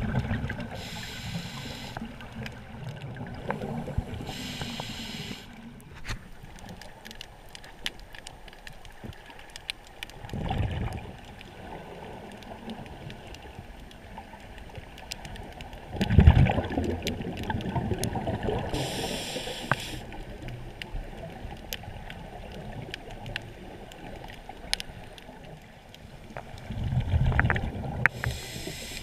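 Scuba diver breathing through an Aqua Lung Legend LX regulator, heard underwater. There are three loud rumbling bursts of exhaled bubbles, the loudest about halfway through, with short hissing inhalations between them and scattered faint clicks.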